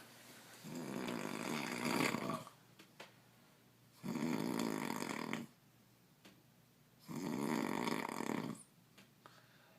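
A sleeping man snoring: three long snores, each lasting about one and a half to two seconds, coming about three seconds apart.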